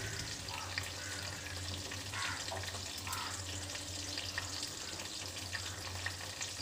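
Marinated mushroom pieces frying in hot oil in an iron pan: a steady sizzle with many small pops and crackles.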